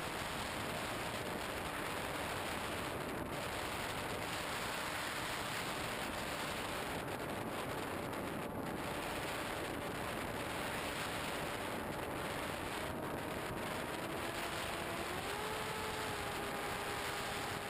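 Steady rushing wind noise on the onboard camera microphone of a radio-controlled FPV model plane in flight, with the plane's motor a faint whine underneath. The whine rises in pitch about fifteen seconds in.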